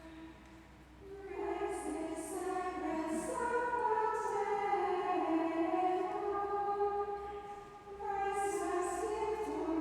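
Women's choir of nuns singing a chant in unison, a slow single melodic line of held notes, with a short pause at the start and a breath about eight seconds in.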